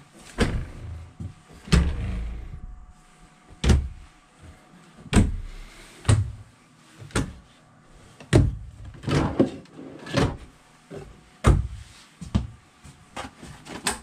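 Cabinet and closet doors being opened and shut by hand, about a dozen sharp knocks and latch clicks at irregular intervals, some with a dull thud.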